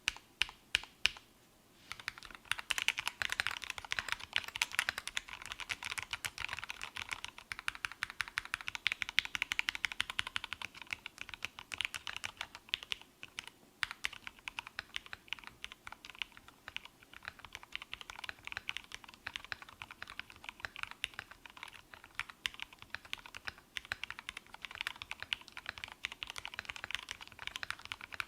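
Tofu 65 custom mechanical keyboard with Tealios V2 linear switches and thick PBT keycaps being typed on. A few single key presses come first, then fast, continuous typing starts about two seconds in.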